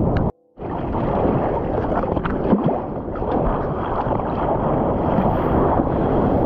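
Muffled rush of surf and churning water right at the microphone, with water sloshing against the camera. The sound cuts out completely for a moment about a third of a second in.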